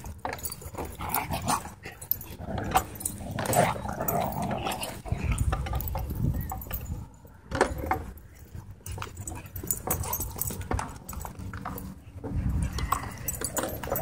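Dogs playing rough, growling and whining, mixed with scuffles and clicks as they run about.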